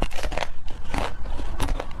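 Close-miked chewing and biting of Korean cake, a run of sharp wet mouth clicks and crunches, several a second.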